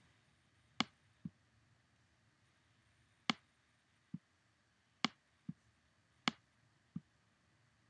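Computer mouse button clicked four times, each press a sharp click followed within a second by a softer, duller release click, as sliders are dragged on screen.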